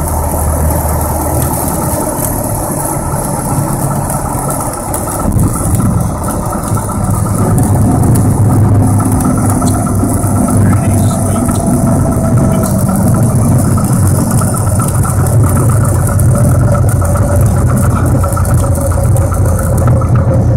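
PA-28's piston engine and propeller heard from inside the cockpit, running steadily as the aircraft rolls along the runway. The engine grows louder from about eight seconds in.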